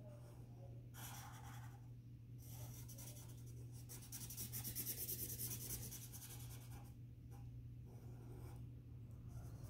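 Red Sharpie felt-tip marker scratching on paper in quick back-and-forth strokes as a star is coloured in, coming in several spells with short pauses between.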